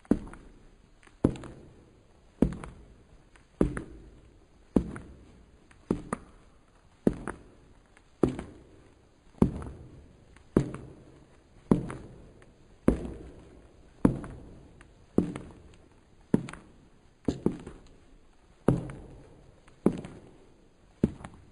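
Slow footsteps on a hard floor, one step about every 1.2 seconds at an even pace, each a dull knock with a short echoing tail.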